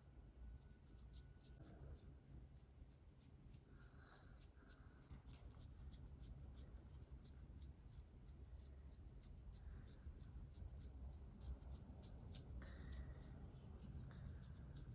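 Press-on fingernails scratching through a dandruff-flaked scalp: faint, quick, rapidly repeated scratchy strokes, about four a second.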